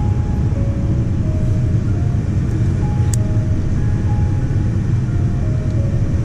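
Steady low cabin rumble of a Boeing 787-10 airliner in flight, with soft background music of slow, single sustained notes over it. A single sharp click about three seconds in.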